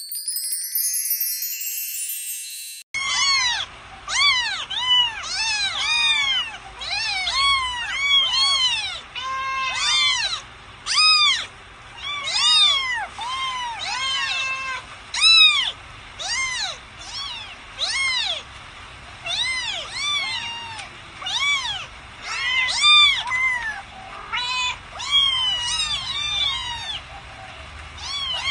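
Many kittens meowing in quick succession: high-pitched mews that rise and fall, often overlapping, several a second. The first few seconds hold a short electronic tone jingle before the meowing starts.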